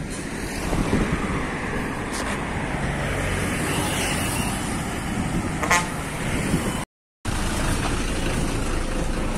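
Traffic passing on a highway, with a short vehicle horn toot a little past the middle. The sound cuts out for a moment about seven seconds in, then gives way to a bus's engine and road noise heard from inside the cabin.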